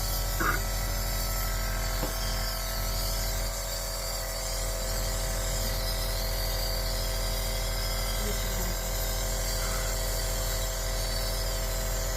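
Compressor nebulizer running with a steady, unchanging mechanical hum and a fast low pulsing, misting a dose of Berodual solution during an inhalation treatment.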